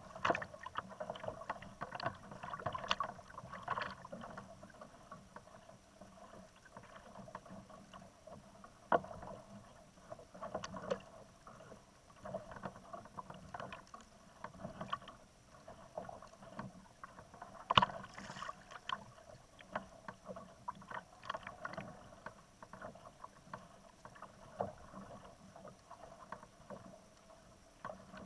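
Small waves lapping against a plastic kayak's hull, with scattered irregular knocks and clicks; the sharpest knock comes a little past the middle.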